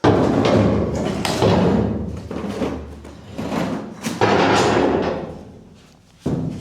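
A series of heavy thuds and knocks with a ringing tail, as a steel patch plate is set into and shifted about in a cut hole in a steel deck to test its fit.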